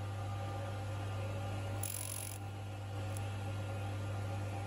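Wheel-cutting spindle and Thornton's cutter on a Schaublin 102 lathe running steadily while cutting the teeth of a brass clock wheel, a steady hum with a short hiss about two seconds in.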